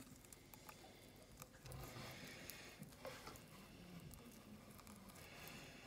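Faint, irregular clicks and soft tearing of a tortoise biting and chewing leafy greens.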